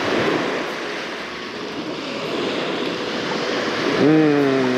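Waves breaking and washing up a sandy beach, a steady hiss of surf. About four seconds in, a man's voice holds a long, drawn-out vowel over it.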